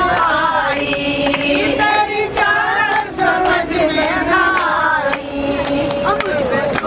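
A group of women singing together with rhythmic hand-clapping, voices close and lively in a crowded train compartment.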